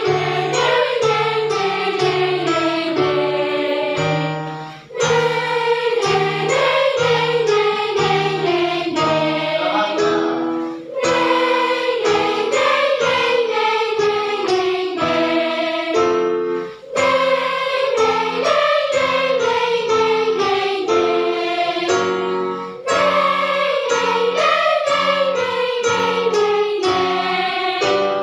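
Children's choir singing with instrumental accompaniment, in phrases of a few seconds each, mostly falling in pitch, with brief breaks between them.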